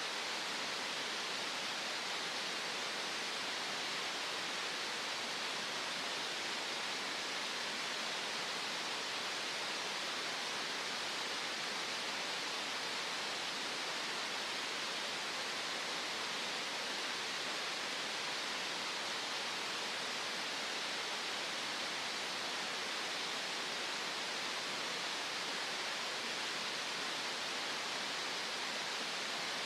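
Green noise: a steady, unchanging hiss with most of its energy in the upper-middle range and little bass.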